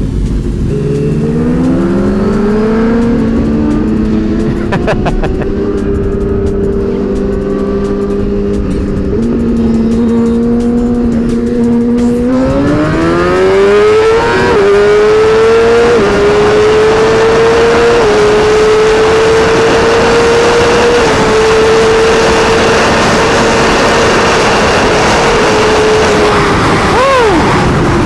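Inline-four superbike engine accelerating hard through the gears, its pitch climbing and then dropping at each upshift, with strong wind rush. Near the end the engine note falls away as the bike slows.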